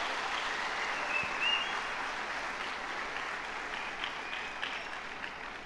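A large audience applauding, the clapping slowly dying away towards the end.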